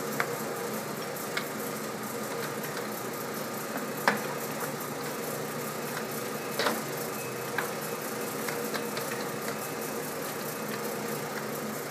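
VDF engine lathe running at low speed in its threading set-up, lead screw turning, giving a steady mechanical hum. A few short sharp clicks or knocks sound over it, the loudest about four seconds in.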